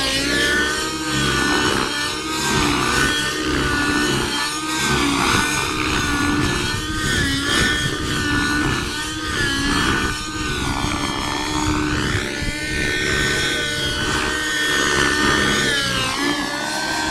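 Radio-controlled model helicopter flying aerobatics: its engine and rotor hum continuously, the pitch rising and falling again and again as it swoops and turns.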